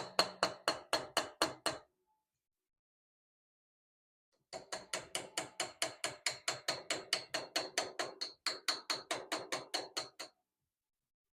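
Hammer tapping a chisel to cut shallow inlay recesses into a wrought iron cross-guard: quick, evenly spaced ringing taps at about five or six a second. A short run stops about two seconds in, and after a pause of a couple of seconds a longer run goes on for about six seconds.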